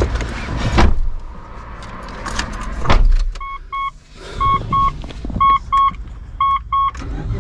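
A Mitsubishi SUV's dashboard warning chime, a double beep repeating about once a second, starting after the ignition key is turned. Before it come a couple of thumps and keys jingling as the driver gets settled and puts the key in.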